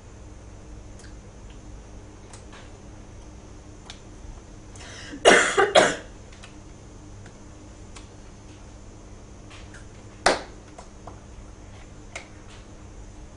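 Quiet room with scattered faint clicks from hands and clothing during sign language. About five seconds in there is a short, loud burst of three quick noisy pulses, and about ten seconds in a single sharp smack.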